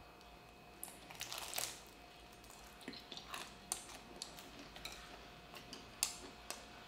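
Biting into and chewing a deep-fried rice-paper roll stuffed with ramen noodles: faint crisp crunches and wet mouth sounds. The loudest crunching comes about a second in, with a few softer crackles later.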